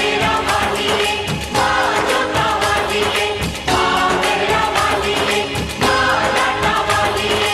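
Background music: a song with a singing voice over a steady beat, in a South Asian pop style.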